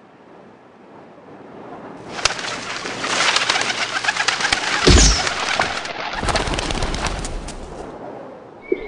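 Pigeons flapping their wings as they fly up close past, a dense clattering flutter that builds about two seconds in, lasts several seconds and stops near the end, with a deep whoosh about halfway through.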